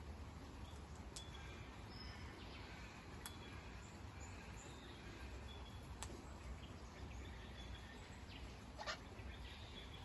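Faint outdoor background noise with scattered short, high bird chirps. Four sharp clicks stand out, the loudest about nine seconds in.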